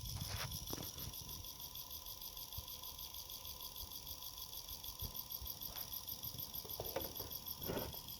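Xiaomi Air Purifier 3 fan running at low speed with a rapid, even ticking, the fan noise fault being reported. A few faint knocks come near the start and again toward the end.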